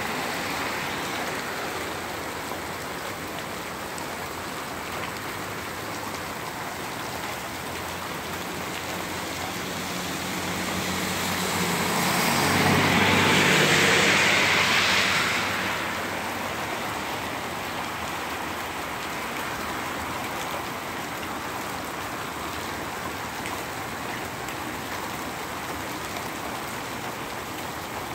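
Steady rain falling. About halfway through, a car drives past on the wet road: the sound swells with a low rumble and hiss for several seconds, then fades back into the rain.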